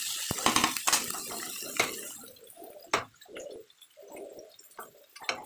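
Vegetables sizzling in hot oil in a metal kadai, with a metal spatula scraping and clicking against the pan. The sizzle drops away about two seconds in, leaving a few scattered knocks and clicks.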